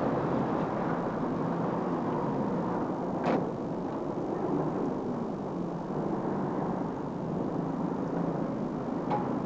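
A car driving: steady engine and road noise, with a single sharp click a little over three seconds in.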